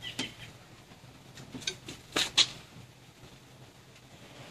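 Light clicks and taps, then two sharp knocks about two seconds in, from handling the plywood hull of a small dinghy, over a faint steady low hum.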